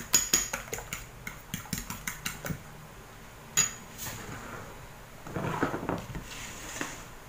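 Metal fork beating raw eggs in a ceramic bowl: a quick run of clinks as the tines strike the bowl for the first two and a half seconds, then one sharp clink a second later. Softer handling noises follow near the end.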